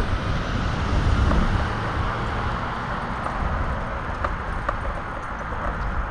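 Wind buffeting the microphone and small scooter wheels rolling on asphalt: a steady rushing noise that eases a little after about two seconds. A few light ticks come through in the second half.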